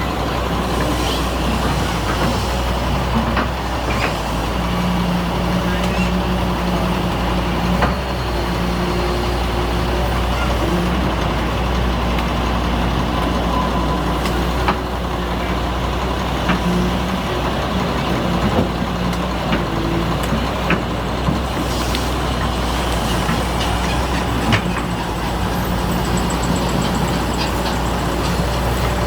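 Heavy diesel engine of an excavator or dump truck running steadily under varying load, with a few sharp knocks scattered through.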